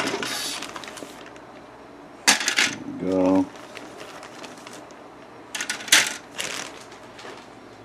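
Plastic model-kit sprues being handled in a clear plastic bag: the bag crinkles and the hard styrene parts clack and clatter together, in sharp bursts about two seconds in and again around six seconds.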